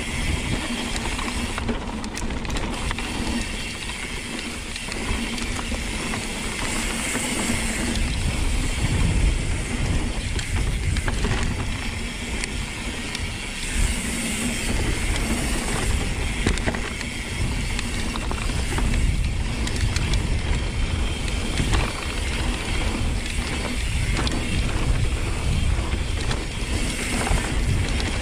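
Mountain bike rattling hard over a rocky downhill trail, with the freehub ratchet clicking and a constant low rumble of wind on the microphone.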